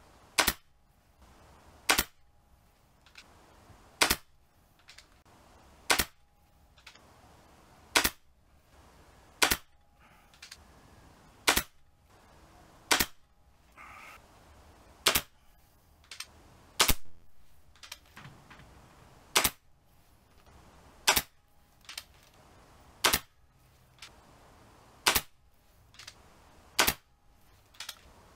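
Regulated Hatsan Galatian PCP air rifle firing shot after shot, a sharp crack about every two seconds, with fainter clicks between the shots. It is a chronograph string testing the rifle's power after an exhaust valve spring adjustment, shooting at about 525 fps.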